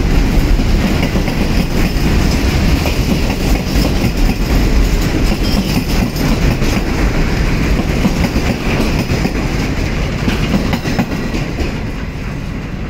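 Freight train of container flat wagons running past, a steady noise of wheels on rails that eases a little near the end as the last wagons go by.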